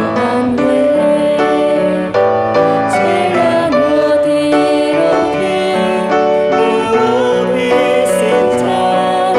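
A woman singing a hymn in Mandarin into a microphone, accompanied by a grand piano.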